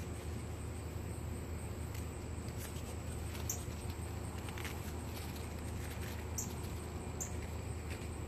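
Quiet outdoor background: a steady high-pitched insect call over a low steady hum, with a few faint soft ticks and rustles from a hand working the netting of a mesh pop-up butterfly cage.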